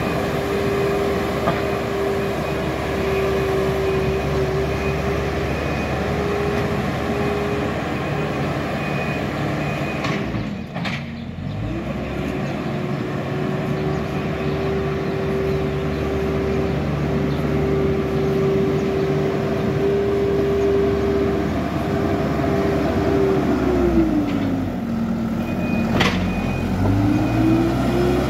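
Hidromek HMK 102S Supra backhoe loader's diesel engine running steadily as the machine levels sand with its front bucket. The engine note drops briefly about ten seconds in, and again near the end before rising back, with a single clank near the end.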